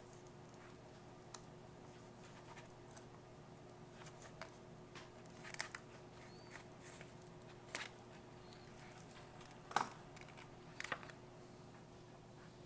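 A handful of faint, scattered snips and crinkles as the top of a foil MRE retort pouch is cut open, the loudest about ten seconds in, over a faint steady hum.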